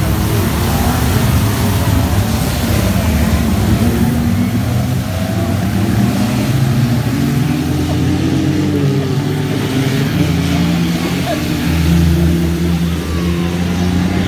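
Several small banger racing cars' engines running and revving at once, their notes rising and falling as the pack laps a flooded track, with a hiss of tyres throwing up spray from standing water.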